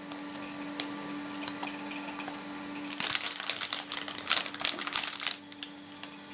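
Thin plastic piping bag crinkling as it is handled, in a burst about three seconds in lasting a couple of seconds, over a faint steady low hum.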